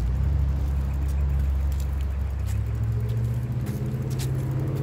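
An engine running steadily, its low hum stepping up in pitch about two and a half seconds in.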